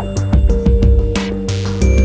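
Electronic background music with heavy bass and a steady drum beat.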